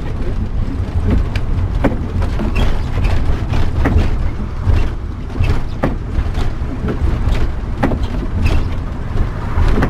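Converted bus motorhome driving, heard from inside the cab: a steady low engine and road rumble with frequent short knocks and rattles.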